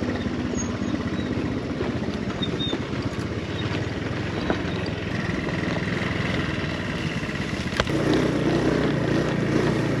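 Motor scooter engine running steadily as it carries riders over a rough dirt track, mixed with road noise; its low hum changes and grows more distinct about eight seconds in.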